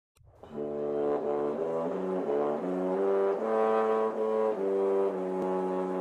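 Intro theme music with a brass sound: a short melody of stepped notes, about half a second each, ending on one long held note from about four and a half seconds in.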